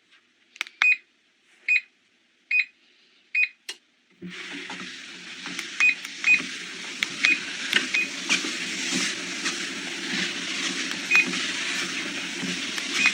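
Walking pad treadmill control beeping four times in quick succession. About four seconds in, its motor and belt start running with a steady hum and hiss, and further short beeps sound now and then as it runs.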